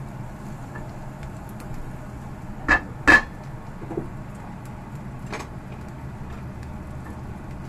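Cookware clatter while stir-frying: two sharp, ringing knocks of a utensil against the pan come close together about three seconds in, and two fainter knocks follow, over a steady low background rumble.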